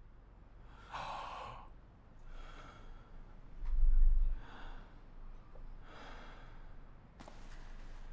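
A person breathing out in slow sighs, about four breaths a second and a half apart. A low thump about four seconds in is the loudest sound, and a few sharp clicks come near the end.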